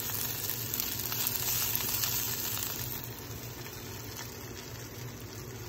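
Broccoli sizzling in an open frying pan, a steady hiss that drops in level about three seconds in.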